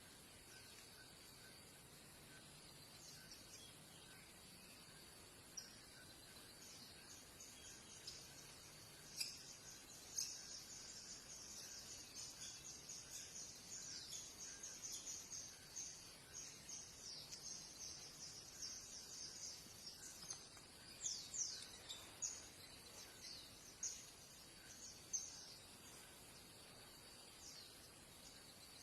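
Faint bird chirping: a fast run of short, high notes, thickest in the middle, with a few quick downward-sweeping calls about two-thirds of the way through.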